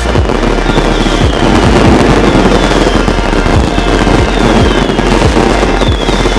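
Firecrackers going off in a dense, rapid crackle of many small bangs, with electronic background music underneath.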